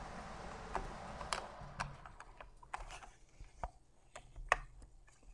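Irregular light clicks and taps from a computer motherboard being handled and turned in the hands, the sharpest about four and a half seconds in, over a faint hiss that dies away about two seconds in.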